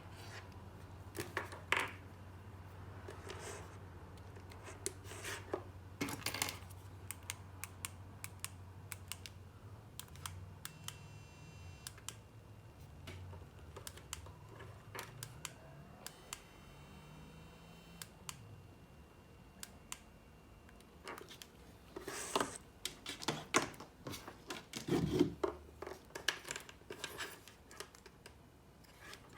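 Handling noises from a small electronics kit being worked on: scattered clicks, taps and rubbing. Two short electronic buzzes come in about eleven and seventeen seconds in.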